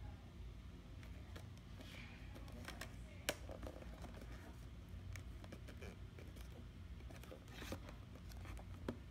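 Cardboard model box being turned over and handled by hands: scattered light rustles, scrapes and clicks of the card, with one sharp knock about three seconds in and a couple of smaller ones near the end.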